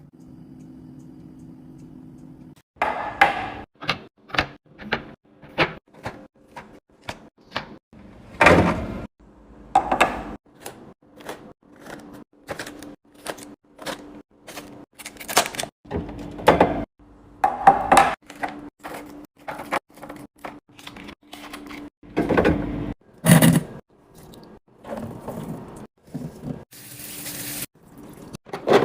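Packaged food and drink containers being set down and arranged on fridge shelves: a quick run of knocks and clunks, about two a second, over a steady low hum. A short hiss comes near the end.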